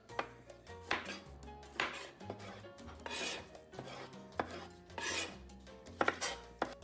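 Knife chopping vegetables on a cutting board in irregular strokes, with a longer scraping sound about three seconds in, over background music with a steady bass line.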